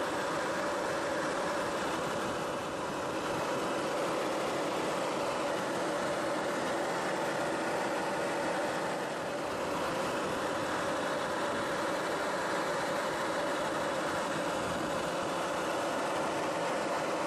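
Steady engine drone of an aircraft heard from inside its cabin: an even rushing noise with a steady hum running through it.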